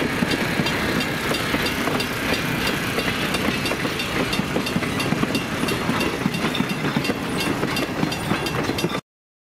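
Steam train passing close by: locomotive and passenger cars rumbling over the rails, with wheels clicking steadily over rail joints. The sound cuts off suddenly near the end.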